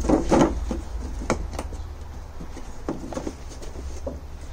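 Cardboard drone packaging being handled and moved aside by hand: a few short rustles and light knocks, the loudest right at the start.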